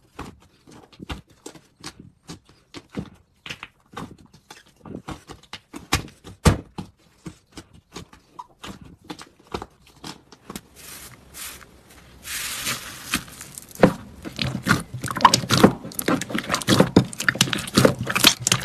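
Thick slime being pressed and kneaded by hand, giving irregular sharp clicks and pops as trapped air escapes. In the last few seconds it turns to a denser, busier crackling of fluffy slime being squeezed.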